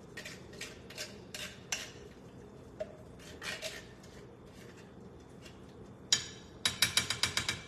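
A cooking utensil clinking and scraping against a pot while food is stirred. It starts with scattered knocks, then a fast run of sharp clacks in the last two seconds.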